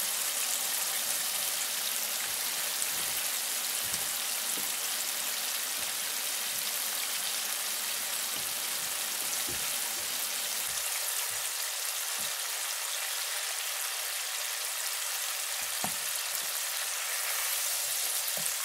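Floured bass pieces deep-frying in hot oil in an electric deep fryer: a steady sizzling hiss with scattered small crackles and pops.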